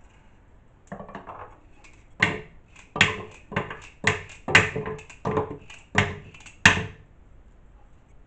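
A carrot being peeled by hand: a run of about nine quick scraping strokes, faint at first about a second in, then steady at roughly two a second, stopping about seven seconds in.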